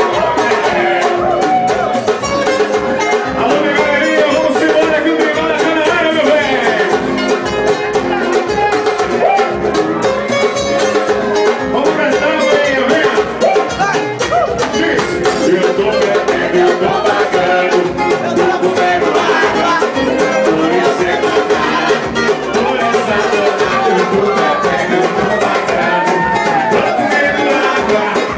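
Loud live band music with a man singing over a steady beat.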